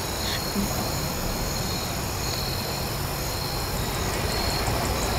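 Evening crickets trilling steadily, with a faint regular ticking chirp high up in the second half. Under them is the low rumble of a distant approaching train, growing slowly louder.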